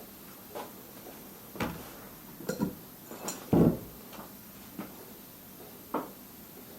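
Metal parts and tools clinking and knocking as a moped's front fork is handled during reassembly: a handful of separate clicks and knocks, the loudest a heavier knock about three and a half seconds in.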